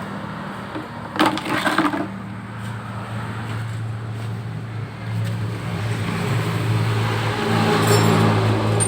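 Honda Beat scooter's single-cylinder engine running with a steady low hum, growing louder in the second half.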